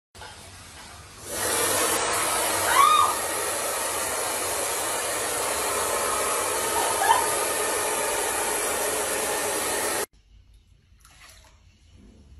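Handheld hair dryer blowing with a steady rush of air that rises in strength about a second in and cuts off abruptly near the end. Two short squeaks that rise and fall in pitch sound over it.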